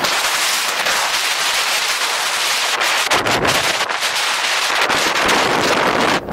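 Skis sliding and scraping over the snow on a downhill run: a loud, steady hiss full of small crackles, with wind rumbling on the microphone around the middle.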